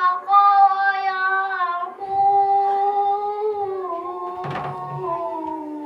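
A boy reciting the Quran in a melodic chant, holding long drawn-out notes in a few phrases that sink slowly in pitch toward the end. A brief knock sounds a little past halfway.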